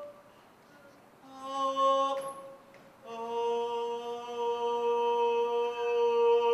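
A man's voice singing without words: a short held note about a second in, then a long steady held note of about four seconds running past the end.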